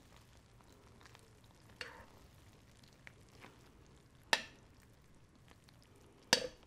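Hot broth being ladled with a metal ladle, quietly, over a faint sizzling haze, with two sharp clinks of the ladle against the dishes, one a little past halfway and one near the end.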